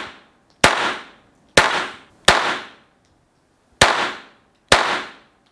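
Glock 44 .22 LR pistol firing five single shots at an uneven pace, each sharp crack trailing off in the echo of an indoor range.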